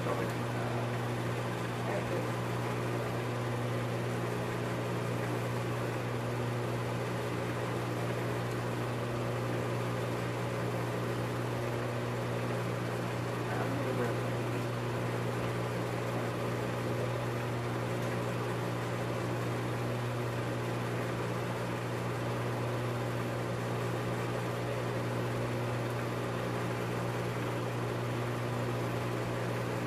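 Steady hum and whir of a running film projector, with a constant low drone and a faint hiss.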